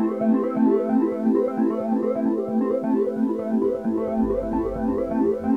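Background music: a fast run of repeating electronic keyboard notes, with a low bass coming in about two-thirds of the way through.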